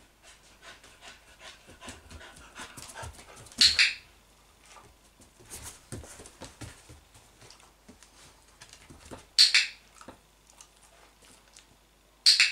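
A dog panting, with three short, sharp clicks from a training clicker: one about a third of the way in, one about three quarters in, and one just before the end as the dog rests its chin on the chair seat, marking the chin-rest start-button behaviour.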